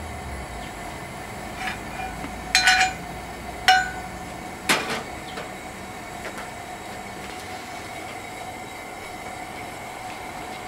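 Sharp metal clinks of a steel ladle against a cast-iron skillet as the last molten lead is poured into a muffin-tin ingot mold, then a heavier clunk as the skillet is set down on the camp stove's grate, over a steady background hiss.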